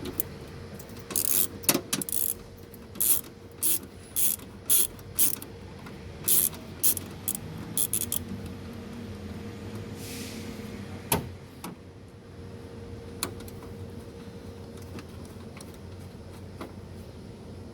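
Ratchet wrench with a 10 mm socket clicking in short strokes, about a dozen in the first eight seconds, as it loosens a bolt. A single sharp knock comes a few seconds later.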